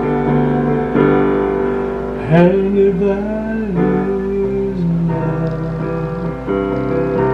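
Electronic keyboard played with a piano sound, sustained chords and melody. About two seconds in, a man's voice joins with a wavering held note lasting a couple of seconds, without clear words.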